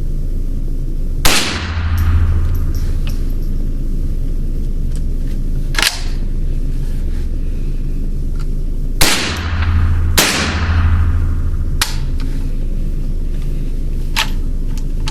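Ruger 10/22 firing high-velocity .22 LR rounds without a suppressor, with the echo of an indoor range. Three loud shots, each with a long echoing tail, come about a second in and then close together around nine and ten seconds. Several fainter sharp cracks fall in between over a steady low hum.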